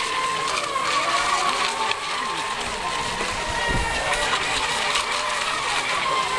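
Several electric RC racing boats of the NAVIGA ECO class running flat out on the water: a steady high whine of their motors, the pitch wavering up and down as they race through the turns. A short low thud comes about halfway through.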